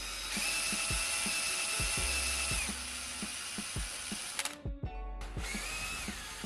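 Drill press running with a steady high whine for about two and a half seconds, then a second, shorter whine near the end, over background music with a steady beat.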